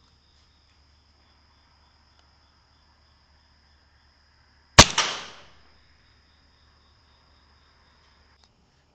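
Air rifle shot at a rat: one sharp crack about five seconds in, with a second, softer knock a moment after and a short ringing decay.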